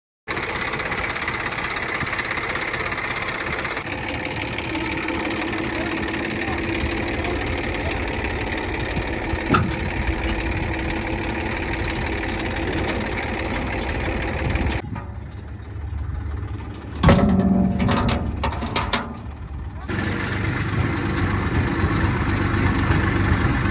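Tractor engine running steadily. Partway through there is a short quieter stretch, broken by one brief loud sound.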